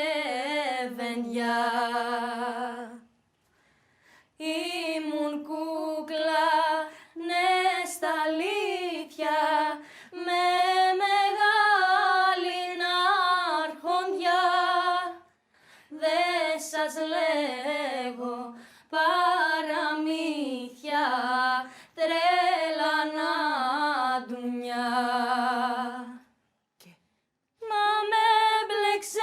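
A woman singing a Greek song unaccompanied, in sung phrases with vibrato, separated by a few short breaths and pauses.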